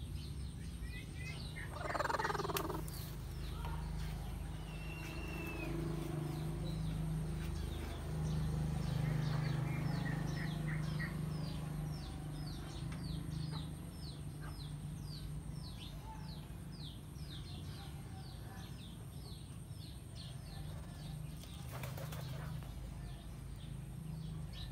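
A small bird chirping over and over, short high chirps that drop in pitch, about two a second, over a low steady hum, with a brief rustle about two seconds in.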